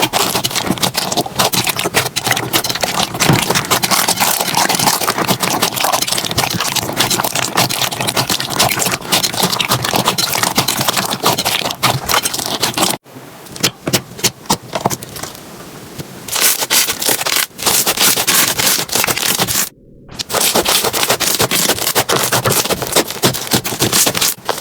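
Slime being played with, a dense crackling and scraping made of many tiny clicks. It goes softer for a few seconds about halfway and breaks off briefly near 20 seconds.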